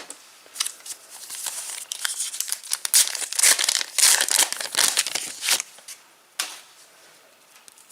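Foil trading-card pack being torn open and its wrapper crinkled, a run of crackling rustles that is loudest in the middle, then a single click and quieter.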